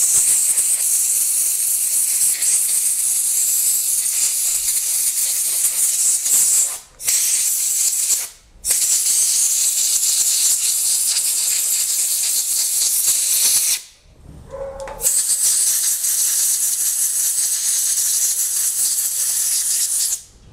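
Compressed air from a compressor's blow gun hissing over an inkjet print head, blowing out the remaining cleaning liquid. It comes in long blasts with a few short breaks.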